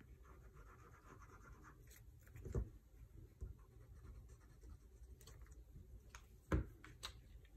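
Faint scratching of a liquid glue bottle's applicator tip rubbing along a small strip of paper, with two soft knocks, one about two and a half seconds in and one near the end.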